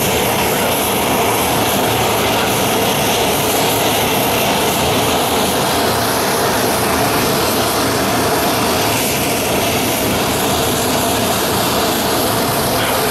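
Boeing C-17A Globemaster III's turbine engines running steadily at idle on the ground, a loud, even jet rush with no change in pitch.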